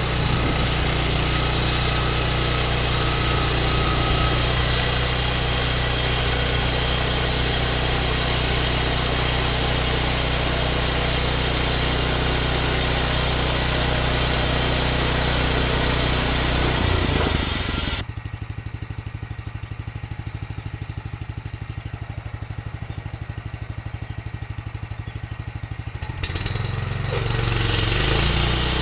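Portable band sawmill running under its engine. About two-thirds of the way through, the upper noise cuts off suddenly and the engine drops to a quieter, evenly pulsing idle, then picks up again near the end.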